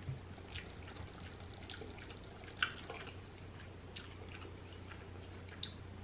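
Wet mouth sounds of someone tasting sauce licked off a finger: a few short lip smacks and tongue clicks, the sharpest about two and a half seconds in, over a low steady hum.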